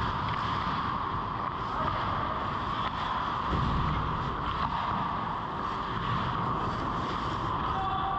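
Steady rushing noise of an ice hockey game, heard from a camera mounted in the goal net: skates on the ice and the goalie moving in the crease, with a low rumble about three and a half seconds in.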